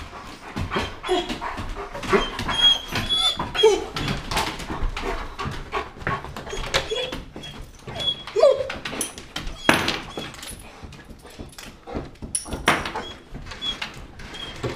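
Over-excited dog whining at a door in short whimpers that rise and fall, eager to go out. Many clicks and knocks sound around it, a few sharp knocks louder than the rest.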